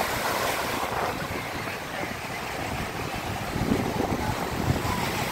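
Small waves breaking and washing up a sandy shore, with wind buffeting the microphone, in stronger gusts near the end.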